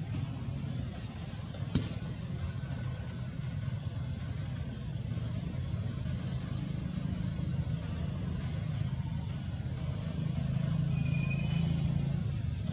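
Steady low hum of a motor running, swelling slightly near the end, with one sharp click about two seconds in.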